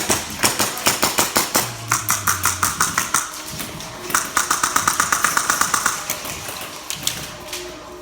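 Airsoft guns firing in rapid strings of shots: a run of about five shots a second for the first three seconds, then a faster burst of about ten shots a second a second later.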